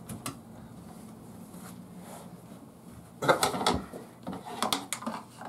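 Faint plastic clicks as a reverse-osmosis filter housing is turned back onto its cap by hand, then a short run of handling knocks and clatter about three seconds in.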